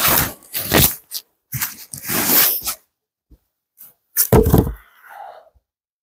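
A birch log being handled: scraping and rustling in snow, then a heavy wooden thud about four seconds in as the log is dropped onto a wooden sawhorse.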